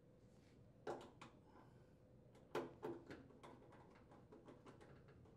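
Faint clicks and ticks of a screwdriver turning the washer's bottom front panel mounting screws, with two slightly louder clicks, one about a second in and one past the halfway point, each followed by a few lighter ticks; otherwise near silence.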